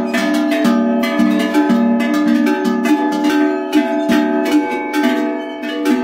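Several metal livestock bells (çan and kelek) ringing together: irregular clanks, several a second, over overlapping ringing tones.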